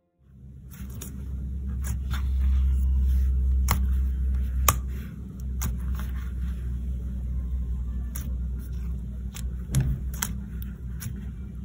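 Homemade slime being kneaded and poked by hand, giving scattered sharp clicking pops, over a steady low rumble.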